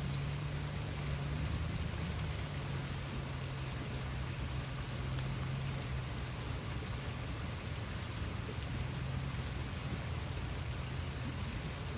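Steady, even hiss of a high, fast-flowing river, with a low steady hum underneath.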